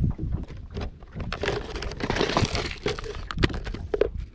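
Crinkling and clicking of a clear plastic clamshell bait pack and its box being handled, with irregular sharp clicks and rustling, busiest in the middle.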